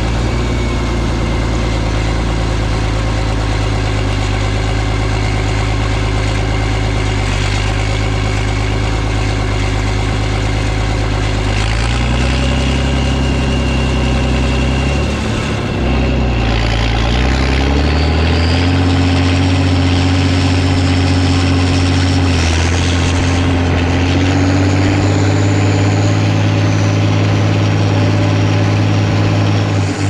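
Heavy farm diesel engine running steadily. About halfway through it dips, then picks up to a higher steady speed, and a high whine joins it.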